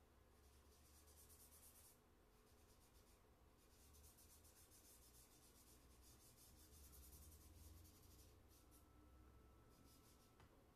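Faint soft rubbing of a hand smudging charcoal on drawing paper, in stretches of a few seconds with short pauses between.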